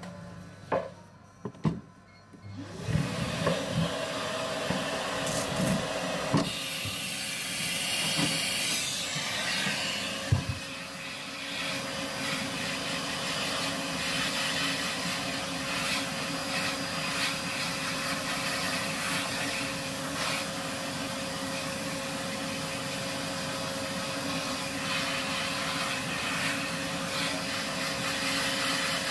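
Barber's ceiling-hung hair vacuum hose, the hair-cleaning machine, sucking cut hair off a customer's head. A couple of knocks come first, then the suction starts about three seconds in and runs steadily. A steady whine joins about ten seconds in.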